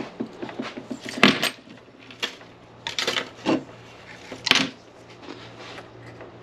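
Small metal tool and chainsaw starter parts being handled: a run of light clicks and clinks with a few sharper knocks, as new starter rope is worked through the recoil starter. A low steady hum runs underneath.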